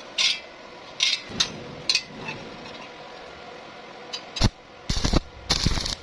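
Arc welding on thin iron in short bursts: four brief crackling tacks in the first two seconds, a sharp knock about four seconds in, then two longer bursts of arc near the end.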